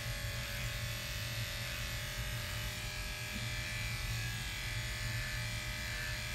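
Electric dog clippers running with a steady buzz while trimming a golden retriever's coat.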